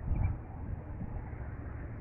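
Wind buffeting the microphone as a low rumble, swelling briefly just after the start, with faint bird chirps over it.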